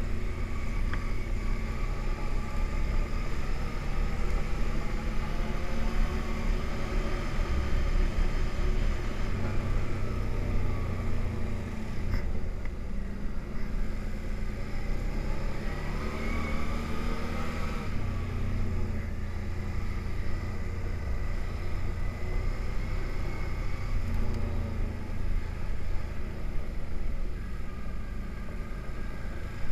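ATV engine running under way, heard from the machine being ridden, its note rising and falling with the throttle, most clearly about halfway through.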